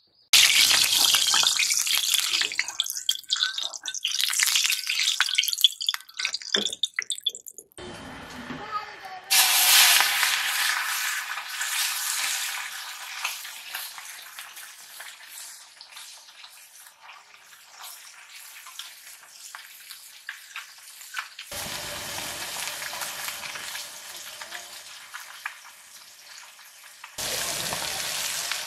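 Small spice-coated fish frying in hot oil in an iron kadai: a loud sizzle starts suddenly as they go into the oil, then settles to a steadier, quieter sizzle that jumps in level a few times. Near the end the sizzle is louder again as a metal spatula stirs the fish.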